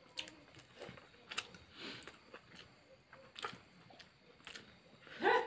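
Soft sounds of eating by hand: fingers picking fish from curry and working rice on a steel plate, with scattered small clicks and chewing. A brief voice-like sound comes near the end.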